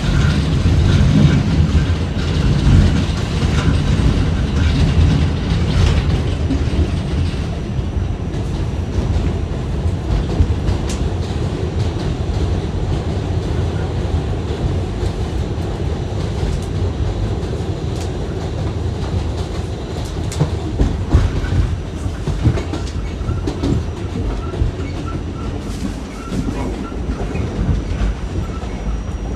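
R46 subway car running along the track: a steady, loud rumble of wheels on rails, strongest in the first several seconds, with scattered clicks as the wheels cross rail joints.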